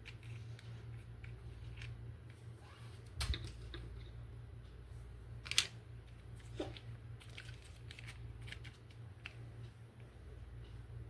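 Handling noise from unboxing a plastic toy: scattered light clicks and taps, with two sharper clicks about three and five and a half seconds in, over a steady low hum.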